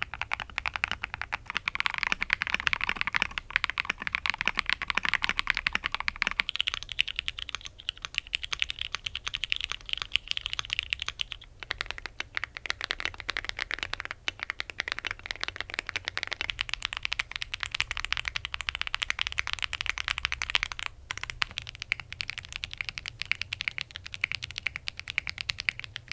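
Fast typing on mechanical keyboards, a dense run of key clicks and clacks. The sound changes character about every five seconds as one board gives way to the next, each with its own switches, plate and dampening mods.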